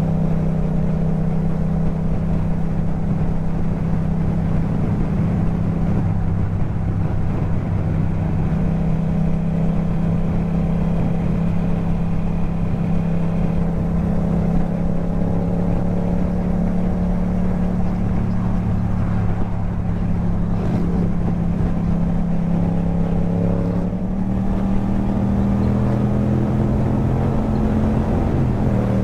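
Yamaha MT-07's parallel-twin engine through an Akrapovic exhaust, running steadily at cruising speed on the move. The revs rise slightly about three quarters of the way through, then dip briefly and recover near the end.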